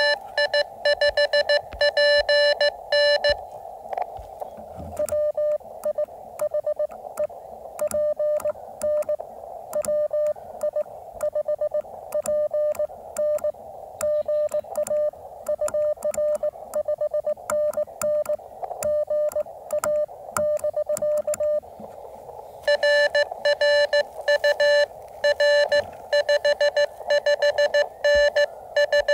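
Morse code (CW) from a ham radio transceiver: a steady tone keyed on and off over a bed of band hiss. The code is loud and sharp at the start and again from about three-quarters of the way through, and quieter in between, as a contact and its signal report are exchanged.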